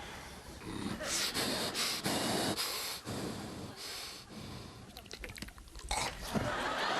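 Vocal sound effects made by mouth into a microphone: breathy huffs, snorts and hisses, then a run of short clicks near the end.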